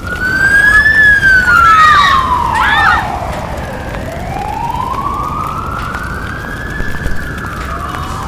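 Emergency vehicle siren wailing in a slow rise and fall: its pitch climbs for about a second, falls for about three, climbs slowly again and starts to fall near the end. It is loudest in the first three seconds, with a few short sliding sounds over it about two seconds in.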